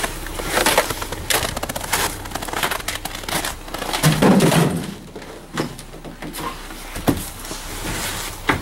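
Junk being rummaged through in a dumpster: irregular clattering, knocking and rustling of plastic and cardboard items being moved, with a louder burst about four seconds in.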